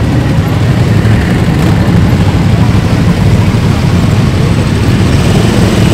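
Many motorcycle engines running together as a column of bikes passes close by: a loud, steady low rumble.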